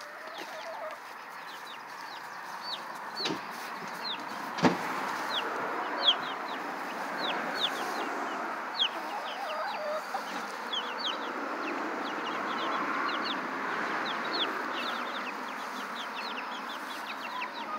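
Baby chicks peeping: a steady run of short, high, falling cheeps, several a second. Two sharp knocks come about three and five seconds in.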